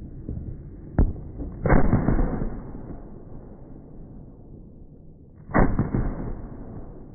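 New Year's Eve fireworks: a sharp single crack about a second in, then two heavier bangs, each followed by crackling that fades over a second or so. A steady low rumble runs underneath.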